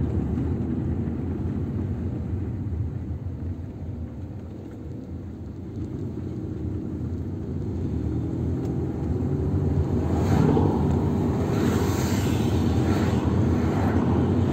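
Car driving in traffic heard from inside the cabin: a steady low engine and road rumble that quietens a few seconds in, then grows louder with more hiss from about ten seconds in.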